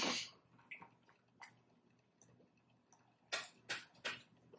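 Quiet, wet slurping sounds from a mouth taking in a drink: one at the start and three short ones in quick succession near the end, with a couple of faint clicks between.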